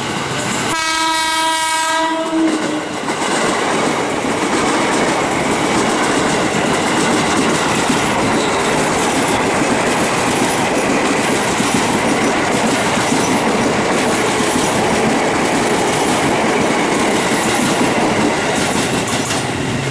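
Train horn sounds one long note about a second in, then a train runs close past with loud, steady rail noise.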